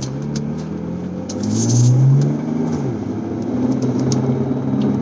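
2008 BMW 335xi's twin-turbo inline-six running while driving, rising in pitch under throttle about two seconds in and then settling to a steady drone. Faint irregular clicks sound over it: the clicking that the owner suspects comes from the front driveshaft rather than a CV axle.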